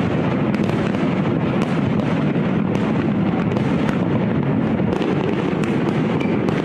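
Fireworks going off without pause: a steady rumble of overlapping bursts, with many short sharp pops throughout.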